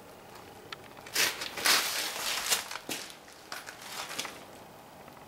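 Rustling, crinkling handling noise with sharp clicks, starting about a second in and loudest for the next two seconds, then a few softer clicks.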